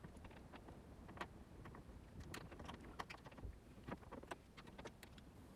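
Faint, irregular small clicks and scrapes of a small screwdriver turning out the tiny screws of a smartphone's back housing.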